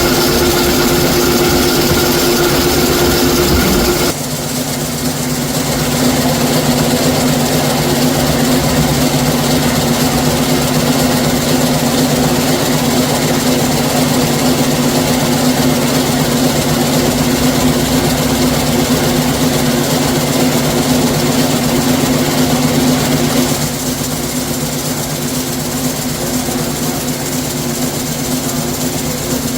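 Zipper-making factory machinery running steadily with a constant hum. The machine sound changes abruptly about four seconds in and gets a little quieter near the end.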